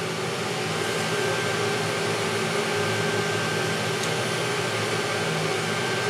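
Chinese diesel air heater running, its blower fan making a steady rush of air with a faint high whine.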